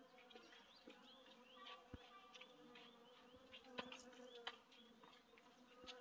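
Faint buzzing of honeybees flying among and foraging on Japanese cornel blossoms, a steady low hum.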